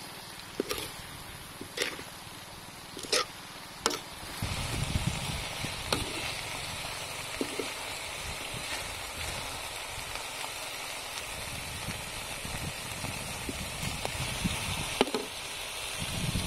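Metal spatula striking and scraping a wok as crispy fried fish and holy basil are tossed, four sharp clinks in the first four seconds. Then a steady hiss from the hot wok, with one more clink near the end.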